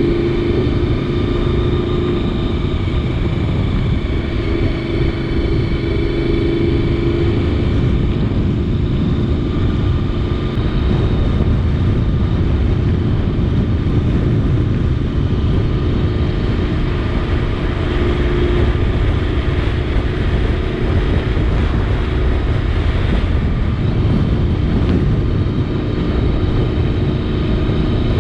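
Honda VFR750's V4 engine running at a fairly steady cruising speed, its note holding even, with heavy wind rush on a helmet-mounted camera.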